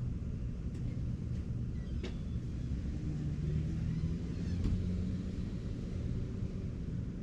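Sectional drain-cleaning machine (a Ridgid K-60) running, its motor turning cable in a clogged drain line as a low steady rumble with a faint hum, and two sharp clicks about two and four and a half seconds in.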